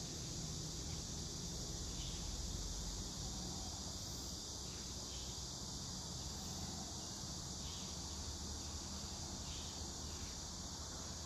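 Faint, steady chorus of insects chirring, with a low steady hum beneath.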